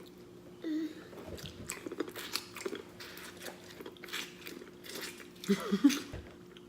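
Close-up wet chewing and lip-smacking as corn on the cob is bitten and eaten, with many sharp mouth clicks and a couple of short hummed "mm" sounds, one shortly after the start and one near the end.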